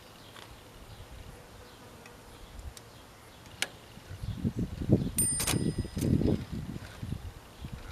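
Underwood Model 5 manual typewriter at work: a single click, then from about four seconds in a spell of low rattling and thudding from the carriage mechanism. Just after five seconds the carriage bell dings once and rings on for about a second, among sharp clacks.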